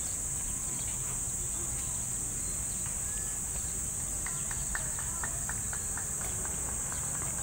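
Steady high-pitched insect drone over a low traffic rumble. About halfway through, a quick run of clicks comes at about four a second for a few seconds.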